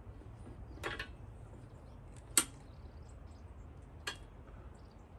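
A farm jack being worked to push the leaning wood shed frame back upright: three sharp metal clicks about a second and a half apart, the middle one the loudest.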